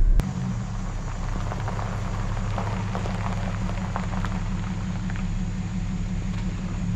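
Pickup truck engine running at low speed while the truck creeps into its spot, tyres crackling faintly on gravel.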